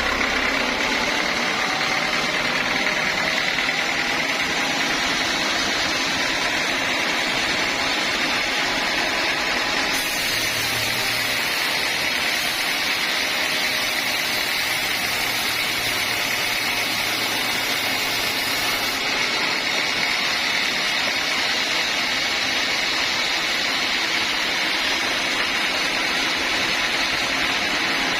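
Sawmill saw running steadily through the timber, a continuous machine noise with a steady high whine.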